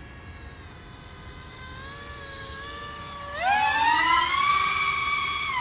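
Flypro XJaguar racing quadcopter's brushless motors and propellers whining steadily, then rising sharply in pitch about three and a half seconds in as the throttle is pushed up. It holds a loud, high scream, then starts to drop right at the end.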